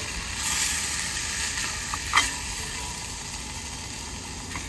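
Slices of bologna sizzling as they fry on a hot cooking surface, the sizzle swelling about half a second in. A single sharp click sounds about two seconds in.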